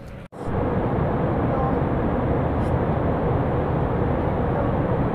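Airliner cabin noise: the steady, loud rush of the engines and airflow inside the passenger cabin. It cuts in after a brief gap at the very start, with a faint steady hum running through it.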